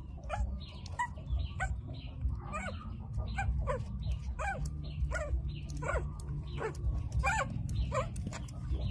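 Young puppies whining and yelping in short, high calls, about two a second, as they crowd around a milk bottle.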